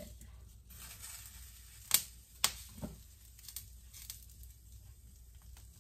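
Tomatoes, garlic and onion being moved by hand in a hot, dry cast iron skillet: two sharp knocks about two seconds in, then a few lighter clicks.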